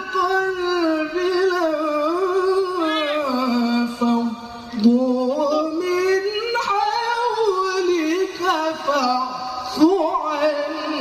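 A qari's melodic Qur'an recitation (tilawah), one high male voice holding long ornamented notes that slide up and down, with a short breath pause about four seconds in.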